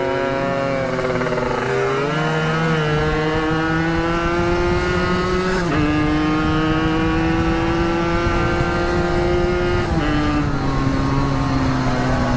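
Two-stroke motorcycle engine under way, its pitch climbing steadily in each gear and dropping sharply at upshifts about six and ten seconds in, then easing off near the end.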